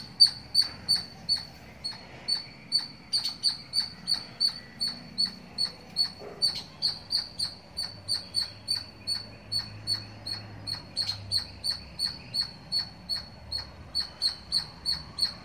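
A small animal's high-pitched chirping call, repeated steadily about three times a second.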